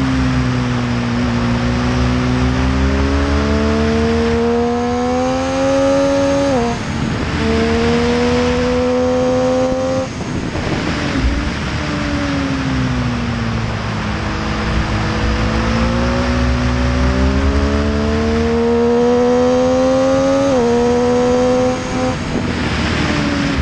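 Triumph Street Triple's inline three-cylinder engine pulling hard through the gears, its pitch climbing and then dropping sharply at each upshift. About halfway through it falls away while slowing, then climbs again through two more upshifts near the end. Heard from the rider's seat over steady wind and road rush.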